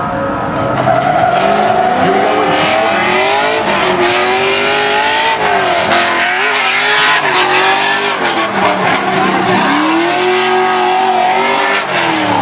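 Drift car's engine revving hard up and down through a slide, the revs rising and falling again and again, with tyres squealing, loudest about seven seconds in.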